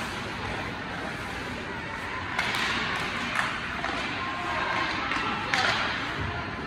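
Ice hockey play in an indoor rink: skates scraping and hissing on the ice, with a few sharp clacks of sticks and puck about two and a half, three and a half and five and a half seconds in, over the voices of players and spectators.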